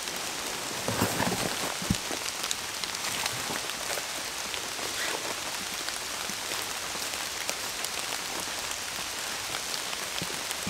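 Heavy rain falling steadily on a cardboard tent, with a few louder taps of drops through the hiss.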